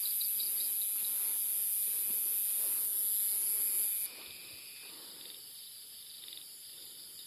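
Insects buzzing in a rice paddy: a loud, steady, very high-pitched drone cuts off suddenly about four seconds in, over faint, fast, repeated cricket-like chirping that goes on throughout.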